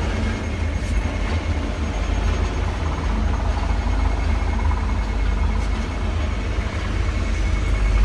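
Steady low rumble and hum inside a Liebherr tower crane's cab, with a faint steady high whine, as the crane's drives run under the operator's joysticks.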